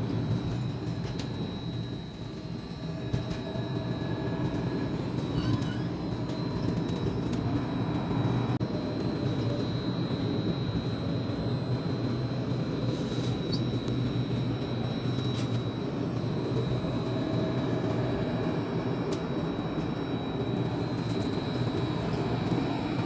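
Tram running along its line, heard from inside the car: a steady rumble of motors and wheels with a thin, steady high whine.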